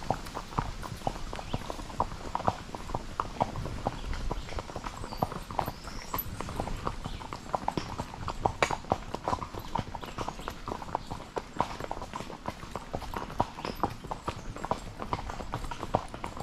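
Horses' hooves clip-clopping on a packed dirt trail, an uneven run of several hoof strikes a second from more than one horse.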